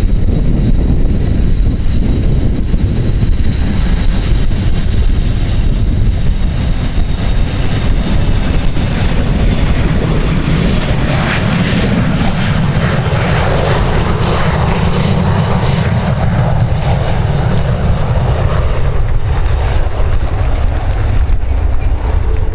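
Airplane engines passing, their noise building to a peak about halfway through and then fading, over steady wind rumble on the microphone.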